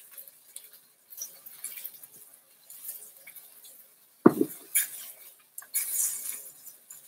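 Kitchen clatter: light clinks of glassware and dishes, with a louder knock on the counter about four seconds in.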